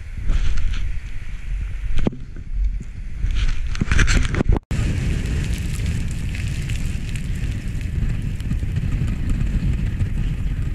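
Wind rumbling on an action camera's microphone while skiing, with the hiss and scrape of skis on snow in the first few seconds. The sound cuts off abruptly a little before halfway, then a steadier wind rumble continues.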